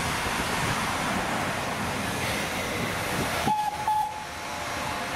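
Steam locomotive styled as Thomas the Tank Engine hissing steam steadily; the hiss drops away about three and a half seconds in as its steam whistle gives two short toots.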